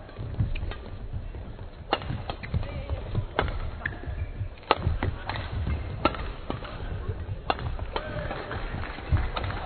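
Badminton doubles rally: sharp racket hits on the shuttlecock about every second and a half, over the players' footsteps thudding on the court.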